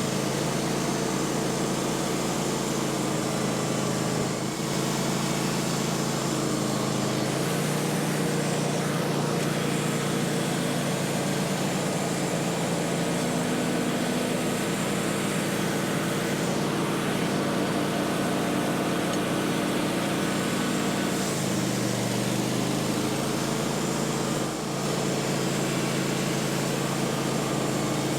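Portable sawmill running steadily under load as its saw cuts a board off a pine log. The engine note shifts slightly a couple of times during the cut.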